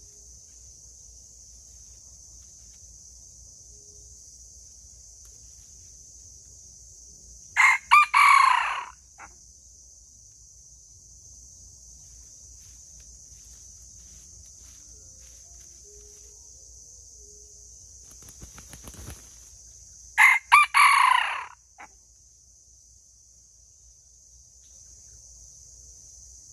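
Red junglefowl rooster crowing twice, about twelve seconds apart. Each crow is short, about a second and a half, broken into a few syllables, and cuts off abruptly. A steady high insect drone runs behind it.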